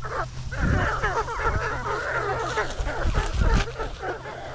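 A flock of backyard chickens clucking and squawking together, many calls overlapping as they crowd in for food scraps, with a few low thumps about a second in and again after three seconds.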